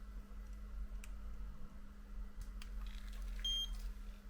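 One short, high electronic beep about three and a half seconds in, from the screen data programmer as the transfer is retried after a data verification error. A couple of faint clicks and a steady low electrical hum sit underneath.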